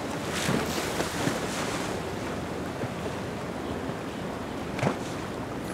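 Wind on the microphone over steady water wash from a passing motor yacht's wake, with a few short sharper splashes.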